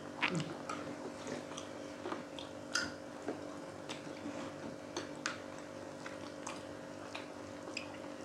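People chewing fried pork cheek close to the microphone, with scattered short mouth clicks and smacks, over a steady low hum.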